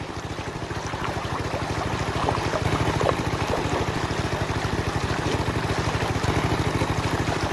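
Small boat's motor running steadily with a fast, even low throb, under a wash of water splashing.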